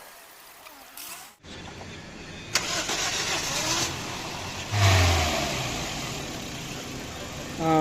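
Toyota Corolla engine starting up about two and a half seconds in, then revved about two seconds later and settling back.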